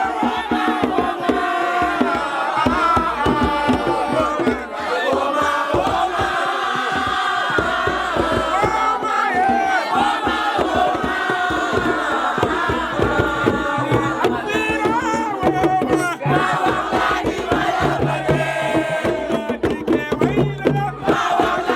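A crowd of voices singing and chanting together over hand drumming. The drum strokes come through more clearly in the second half.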